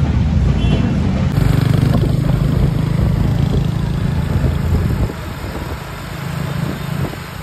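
Diesel engine of a New Holland 3630 tractor running as the tractor drives along, a steady low rumble that gets quieter about five seconds in.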